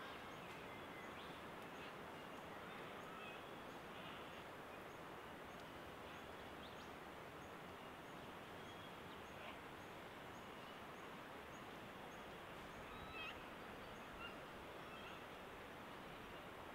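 Quiet bush ambience: a steady background hiss with scattered faint bird calls, and a faint high tick repeating about twice a second.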